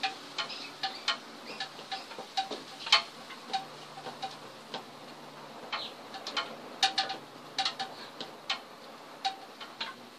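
Wood-burning pen tip tapping on a wooden board: irregular light clicks, sometimes several in quick succession, as the hot tip dabs in the tree's foliage. A faint low hum runs underneath.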